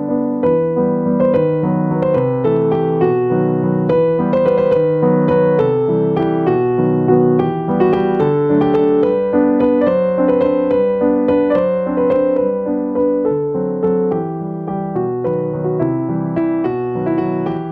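Background piano music: a gentle melody over chords, notes struck one after another in a steady flow.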